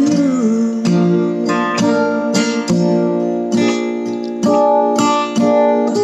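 Acoustic guitar strummed slowly, chords ringing between the strokes. The last sung note of the line trails off and falls away just at the start.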